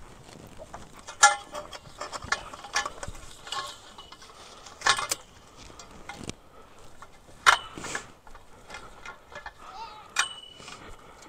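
Thin metal tubes of a click-together pen kit clinking and clanking against one another as they are gathered up and carried, a sharp ringing strike every second or two.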